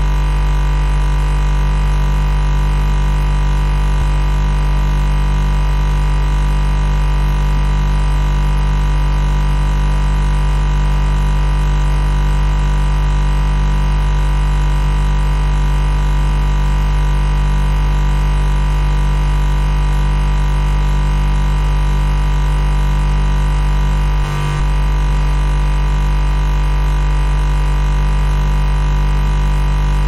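Refrigerator compressor hum: a steady, unbroken drone with a strong deep tone and a stack of fainter higher tones above it. A short dip in level comes about twenty-four seconds in.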